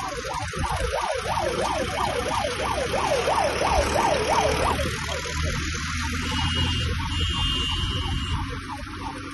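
A vehicle siren or hooter yelping with a fast rising-and-falling wail that quickens and then cuts off about five seconds in. Under it runs the low rumble of engines and traffic, and later a short high tone sounds twice.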